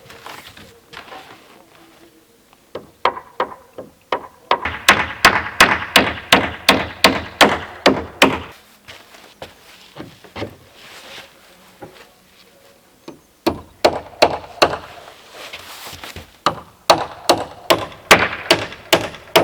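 Hammer driving nails into wood: two runs of quick, even blows, about three a second, the first from about five to eight and a half seconds in and the second from about thirteen and a half seconds in, with scattered lighter knocks between.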